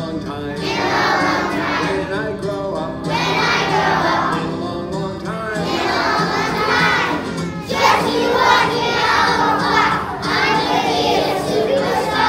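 A class of young children singing a song together loudly in unison, over instrumental accompaniment with steady sustained low notes.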